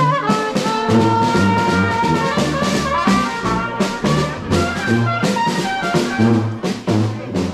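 Small marching brass band playing an upbeat tune: trumpet melody over a sousaphone bass line, with a snare drum keeping a steady beat.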